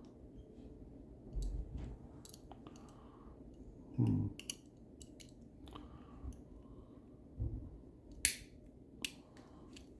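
Lever-lock picks and a turning tool clicking and scraping in a lever lock: scattered small metallic ticks, a few dull bumps, and sharp clicks near the end.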